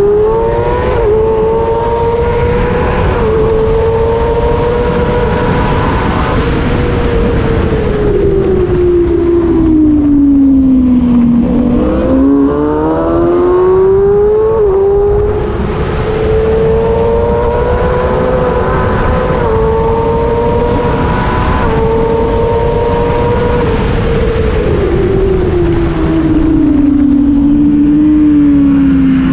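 Kawasaki ZX-6R inline-four engine at high revs. Its pitch climbs in steps with brief dips at gear changes, then falls away twice, about ten seconds in and near the end, before rising again. Throughout there is a steady rush of noise.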